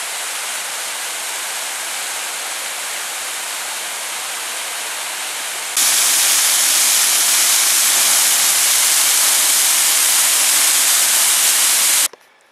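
Waterfall pouring over a rock ledge into a pool: a steady rushing hiss. It gets louder about six seconds in and cuts off abruptly near the end.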